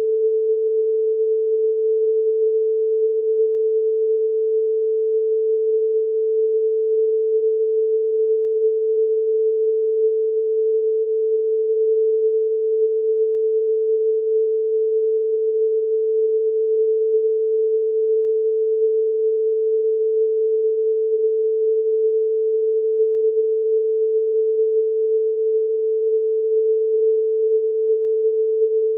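A single steady electronic tone, a little under 500 Hz, held loud and unbroken, with a faint tick about every five seconds. It is the continuous tone of a mock Emergency Alert System broadcast.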